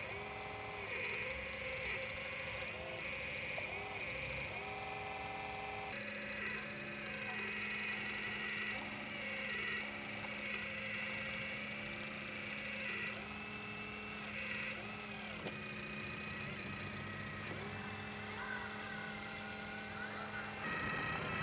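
Hydraulic pump of an RC4WD Earth Digger 4200XL scale excavator whining over a steady hum, its pitch dipping and recovering again and again as the boom and bucket work through the soil under load.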